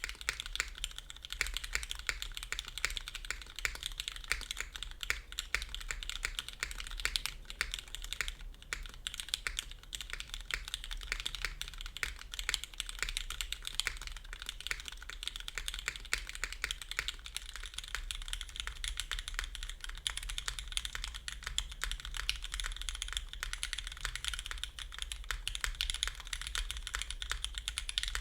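Continuous fast typing on a custom mechanical keyboard with lubed Cherry MX Black linear switches: a dense stream of key clacks and bottom-outs with no pauses.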